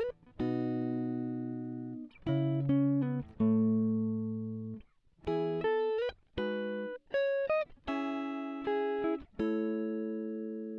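Instrumental music on a clean-toned plucked guitar: chords and short runs of notes, each ringing and fading out, in phrases with brief gaps, including a few sliding notes.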